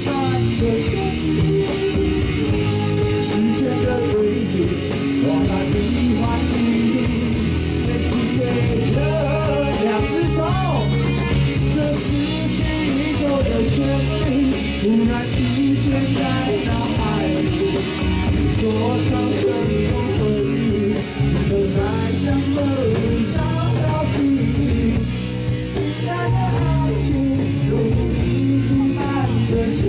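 Rock band playing live: electric guitar over drums with a steady beat, the cymbals ticking fast and evenly throughout, and a melody line that bends in pitch.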